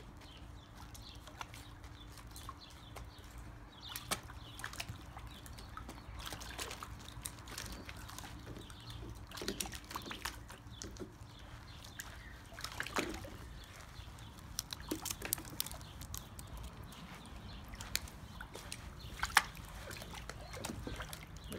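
Labradoodle puppies wading and pawing in the shallow water of a plastic kiddie pool: irregular small splashes and sloshing, with one sharper splash near the end.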